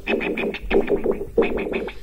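A recorded song fed into a modified MFOS Noise Toaster analog synth's external input and heard through its filter and envelope. It is chopped into stuttering, scratch-like bursts, breaking about every two-thirds of a second.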